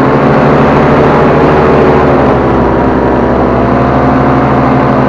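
Paramotor engine and propeller running steadily in flight, loud and close, as heard from the pilot's seat.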